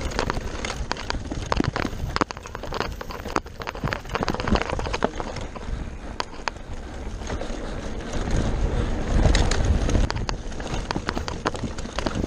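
Mountain bike descending a dirt forest trail at speed: tyres rolling over dirt and stones, the bike rattling with many sharp clicks and knocks, and wind buffeting the microphone, heaviest around nine seconds in.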